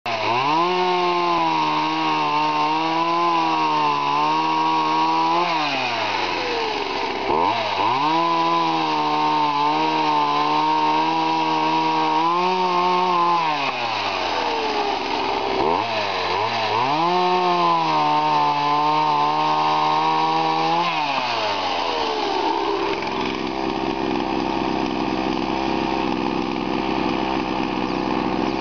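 Gasoline chainsaw cutting through a log, run at full throttle in three long stretches with the engine falling back toward idle between them. From about two-thirds of the way through it settles into a steady idle.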